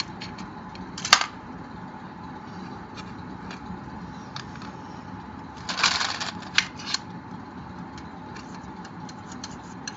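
Plastic Connect 4 checkers clicking and clattering as they are handled and dropped into the plastic grid: a sharp click about a second in, a brief rattle of several clicks around six seconds in, and scattered light clicks.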